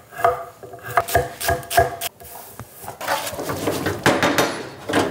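A chef's knife dicing bacon on a wooden cutting board, a quick series of sharp chops about three a second. About three seconds in, a wooden spoon stirs and scrapes diced bacon and onion in a skillet over a steady sizzle.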